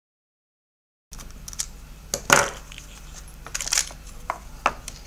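Silent for about the first second, then sharp plastic clicks, cracks and scraping as the plastic power base of a cordless electric jug kettle is prised apart by hand, with one loudest crack near the middle.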